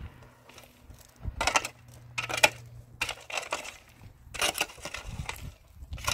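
Digging into stony earth: about six gritty scraping strokes of a hand tool, roughly one a second.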